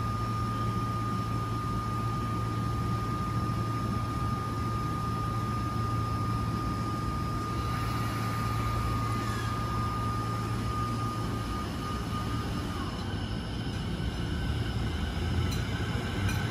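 JR 209-series electric commuter train standing with a steady hum and a steady whine. About halfway through it starts pulling away, its motor and inverter sound rising in pitch as it gathers speed.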